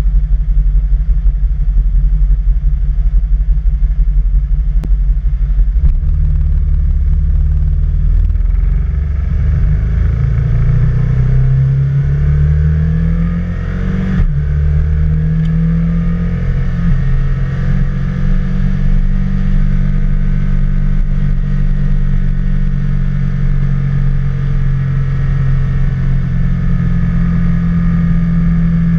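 Can-Am Spyder three-wheeled motorcycle's engine running at road speed, heard from the machine itself with a heavy low rumble. The engine note climbs, drops off sharply about halfway through, then holds steady.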